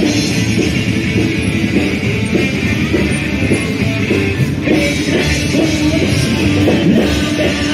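Rock music with electric guitar playing steadily.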